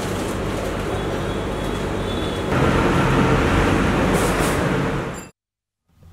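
A steady low hum with background noise, then about two and a half seconds in, louder street traffic noise of passing vehicles, which fades out shortly before the end.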